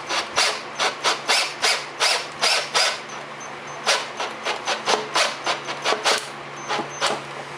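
A wood screw being driven into a 2x4, rasping and creaking through the wood in short strokes about three a second, with a brief pause a little after the middle.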